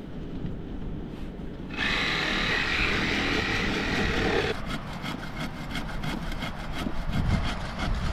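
Hand saw cutting through a dry driftwood log with a rasping sound. The louder, steady stretch of about three seconds begins about two seconds in and gives way to quicker, choppier strokes.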